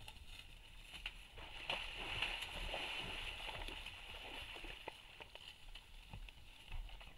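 Cow elk hooves thudding and splashing in the mud and grass of a water hole as the animals move quickly, with scattered sharp knocks. A steady high hiss runs behind, swelling in the middle.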